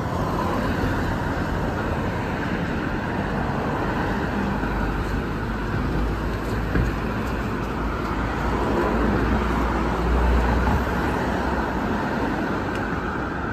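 Steady city street traffic noise from passing cars, with a low rumble that swells about two thirds of the way through and eases off near the end.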